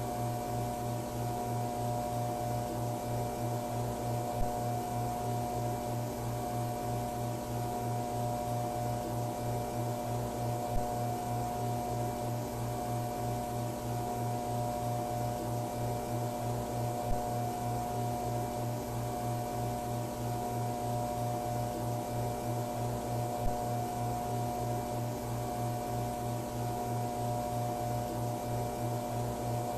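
Steady electrical hum of fluorescent lights, several fixed tones over a faint hiss, with a small tick about every six seconds.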